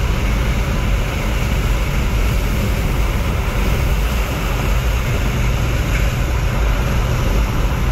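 Supercharged Corvette Grand Sport running at a steady speed: a loud, even drone of engine, exhaust and road noise, with no change in revs.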